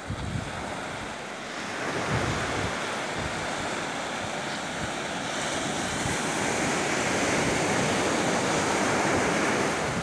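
Low surf breaking and washing up a sandy beach, growing louder about two seconds in, with wind buffeting the microphone now and then.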